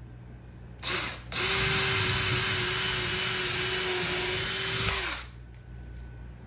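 Power drill drilling a hole into a wall stud. It gives a short spurt about a second in, then runs steadily at constant speed for about four seconds and stops.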